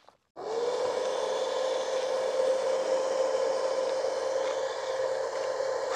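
Battery-powered 64-hole rocket bubble gun switched on by its trigger, its electric fan motor whirring. It starts about a third of a second in, its pitch rises briefly as it spins up, then it runs steadily while blowing bubbles.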